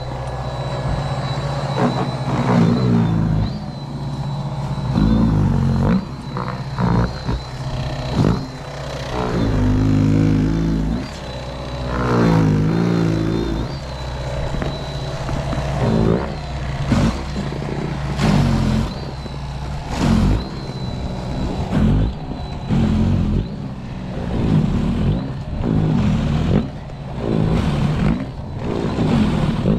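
Greenworks 80V cordless electric snow shovel running through deep snow: a steady motor hum and whine whose pitch bends and recovers every couple of seconds as the auger bites into the snow and throws it.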